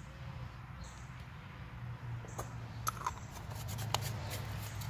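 A few light clicks and handling sounds as the plastic front cover of a Dolphin 130-A spincast reel is fitted and turned onto the reel body, over a low steady hum.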